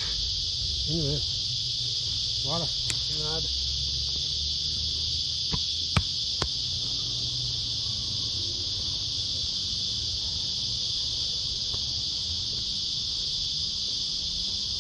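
Steady high-pitched insect chorus droning without a break, with a few sharp knocks near the middle.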